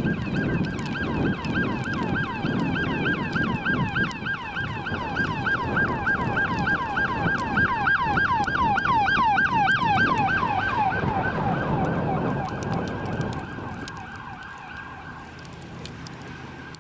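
Emergency vehicle's electronic siren on a fast yelp, sweeping up and down about three times a second over the low rumble of a heavy vehicle. It gets louder, then fades away after about twelve seconds as the vehicle passes and moves off.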